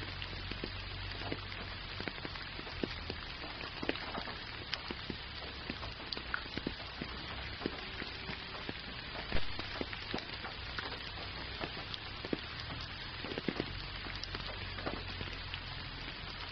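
Gentle rain falling steadily: an even hiss with many separate close drop hits scattered through it, and one louder hit a little past halfway.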